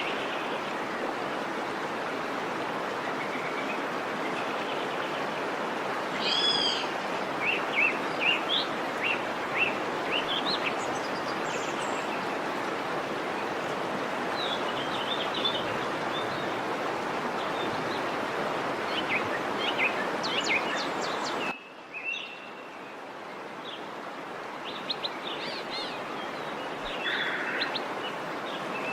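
Steady rush of a waterfall with birds chirping and calling over it. About two-thirds of the way through the water sound drops out abruptly and returns quieter, as at an edit.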